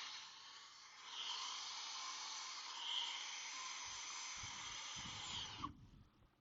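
Steady hiss of blowing air, such as a hot-air nozzle or air blower used on the motherboard, that cuts off suddenly near the end, followed by a few faint clicks.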